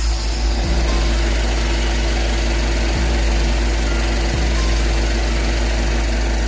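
Background music with a deep, steady sub-bass and bass hits that drop in pitch every second or two.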